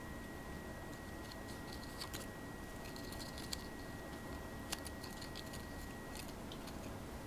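A Maine Coon's claws and teeth scratching and catching at a plush toy and its tag: faint, scattered scratches and small clicks, with a couple of sharper clicks around the middle.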